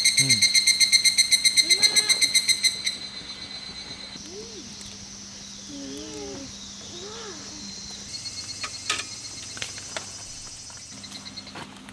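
Insects chirping at dusk: a loud, high chirp pulsing about five times a second that stops about three seconds in, followed by a fainter steady high insect buzz. A few sharp clicks come near the end.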